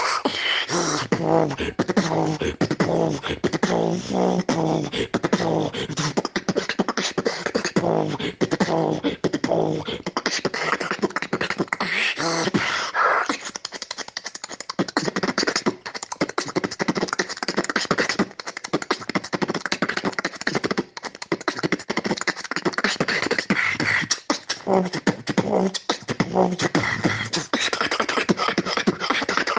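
Solo beatboxing: a fast, dense run of vocal kicks, snares and clicks woven with hummed, pitched bass notes, busiest in the first half and a little quieter in the middle. It is a phone recording sent over WhatsApp, with the top end cut off.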